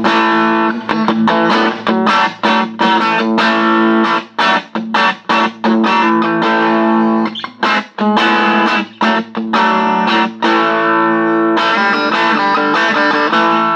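Strat-type electric guitar played through a 1971 Watkins Clubman valve amplifier, a single EL84 running in Class A, with the amp's treble control turned up full. It is a fast run of notes and chords with short breaks between phrases.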